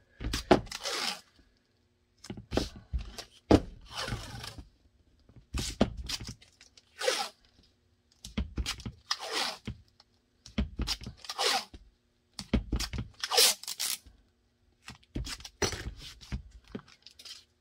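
Adhesive tape pulled off a roll again and again in short ripping strips, about a dozen pulls with brief pauses between, as layers of tape are built up. A faint steady hum sits underneath.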